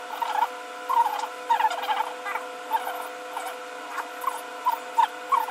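Short, high metal squeaks repeating about twice a second from a flywheel puller being threaded and turned by hand on the engine's flywheel hub, over a steady hum.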